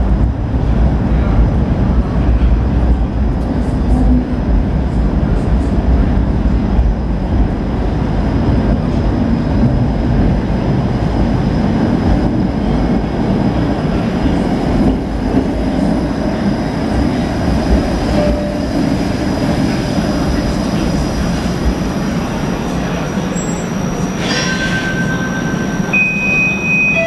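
TTC Bombardier Flexity Outlook streetcar running in from the tunnel and pulling alongside an underground platform, a heavy low rumble of wheels on rail throughout. Near the end, as it stops, a steady electronic tone sounds, followed by a higher one.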